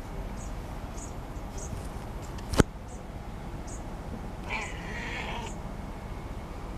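A long-haired black-and-white cat gives a short meow a little past halfway, lasting about a second. A sharp click comes a couple of seconds earlier and is the loudest sound, and faint, short, high chirps recur now and then.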